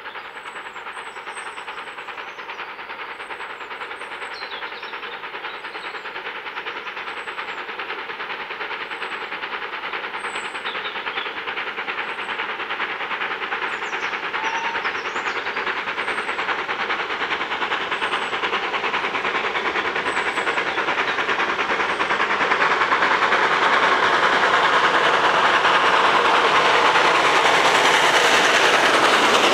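Steam locomotive and its train approaching, the sound of the engine and train growing steadily louder throughout.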